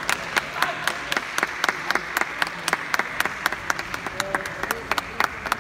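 Spectators applauding: many quick, uneven hand claps.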